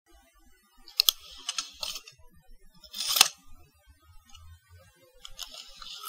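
Tape measure clicking and rattling as its blade is pulled out and retracted, with a louder zip about three seconds in that ends in a sharp snap.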